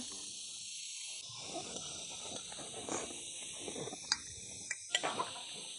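Steady, faint high-pitched chirring of insects, with a few soft clicks about four to five seconds in.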